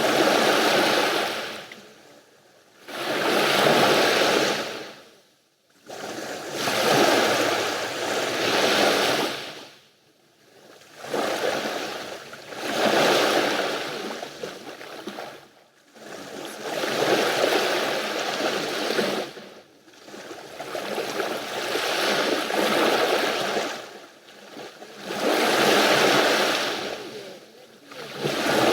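Sea waves washing onto the shore, one surge of surf about every three to four seconds with short quiet gaps between.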